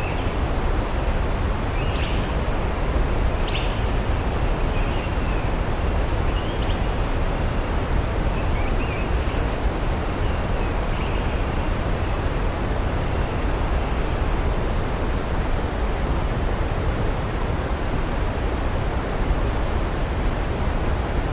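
Waterfall rushing as a steady, even roar of water, heaviest in the low end. Faint distant bird chirps come and go during the first half.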